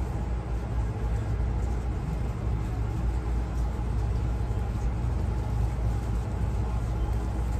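A steady low rumble of background noise with no change.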